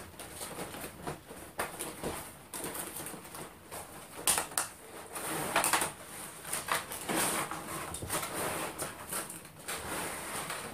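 A cardboard box being handled and opened, and a clear plastic tray of train-set parts slid out of it: irregular rustling, scraping and clicking of cardboard and plastic.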